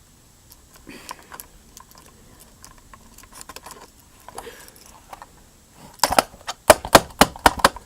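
A screwdriver working on the screws of a plastic metal-detector casing: quiet scraping and small clicks, then about six seconds in a quick run of loud, sharp clicks and clacks from tool and parts knocking together.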